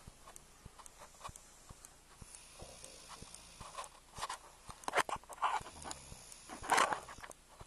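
Snoring: a run of short, noisy, rasping breaths at an uneven pace, loudest about five and seven seconds in.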